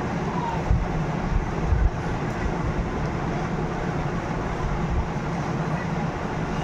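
Steady low rumble and hiss of a vehicle in motion.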